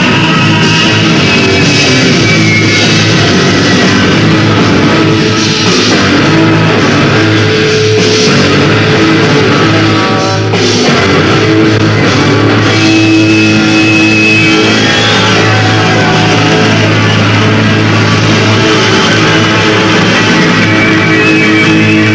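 Rock band playing live, loud: electric guitars over bass and drums in an instrumental passage without singing, with held and bending guitar notes over a long steady bass note.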